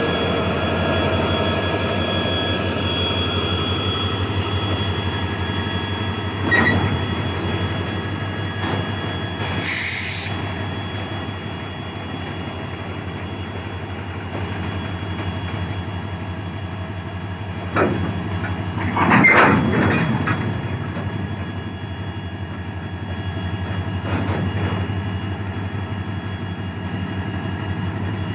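Indian Railways WDG-4D diesel locomotive engine humming steadily with rail noise. A few brief louder sounds rise over the hum, about a quarter of the way in and again about two-thirds of the way through.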